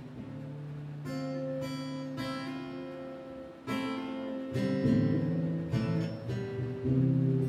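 Acoustic guitar strumming chords, each struck and left to ring, with strokes coming irregularly about half a second to a second and a half apart.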